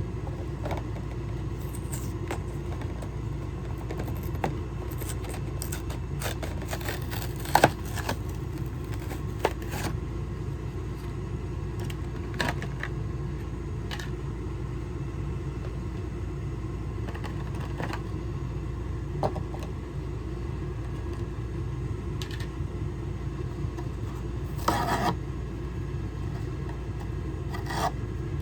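Hands handling plastic toy packaging: scattered sharp clicks, scrapes and crinkles, the loudest click about a third of the way in and a longer crinkle near the end, over a steady low rumble.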